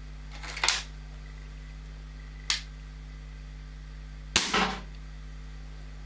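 Weihrauch HW99 spring-powered air rifle being handled and fired: a short clatter about half a second in, a sharp click about two and a half seconds in, then the loudest crack, with a brief ring, about four and a half seconds in.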